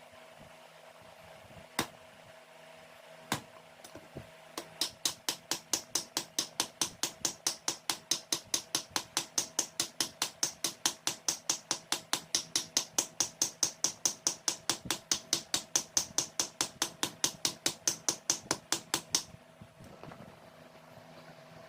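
Hammer blows on steel: a couple of single strikes, then a steady run of about three to four blows a second that stops suddenly near the end.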